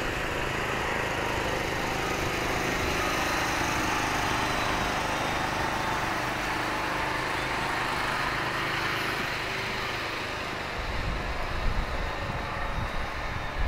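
A motor engine runs steadily, swelling a little in the middle and easing off. Wind buffets the microphone in the last few seconds.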